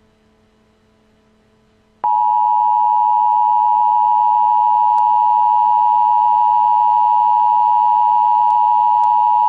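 Emergency Alert System attention signal: a loud, steady two-tone alarm that switches on suddenly about two seconds in, after a faint hum, and holds without change. It is the warning that an emergency alert broadcast is about to follow.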